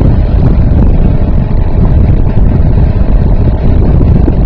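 3.5 hp Sea King outboard motor running steadily under way, pushing an inflatable raft, with heavy wind buffeting on the microphone.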